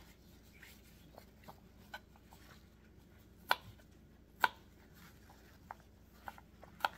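Knife slicing a poblano chili: irregular light taps of the blade, with two louder knocks near the middle.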